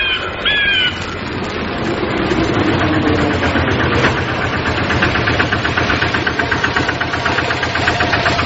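An engine starts running, building up over the first couple of seconds and then going with a fast, even knocking. A few short falling chirps sound in the first second.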